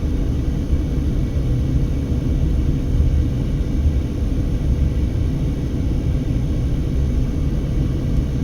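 Steady low rumble of a car's road and engine noise heard from inside the cabin while driving, with a faint steady hum above it.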